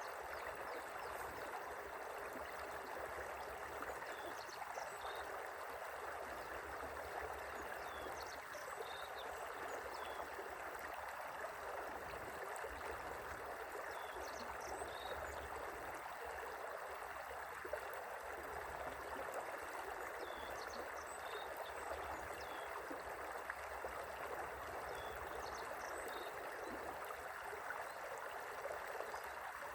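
Gently flowing river: a steady, even rush of running water.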